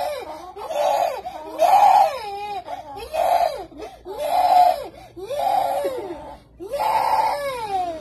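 A small child crying: a string of about seven high-pitched cries, each rising and falling in pitch, with short breaths between them.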